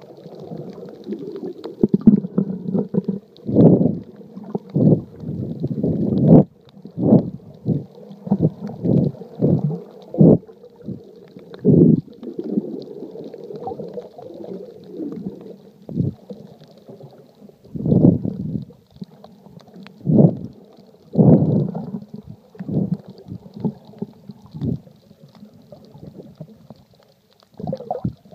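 Muffled underwater rumbling and gurgling heard through a phone sealed in a waterproof case under water: irregular surges of water movement every second or so, dull with little treble.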